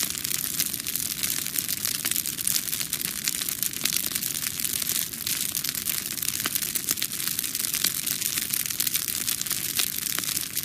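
Cartoon fire sound effect: flames burning with a steady, dense crackle and hiss.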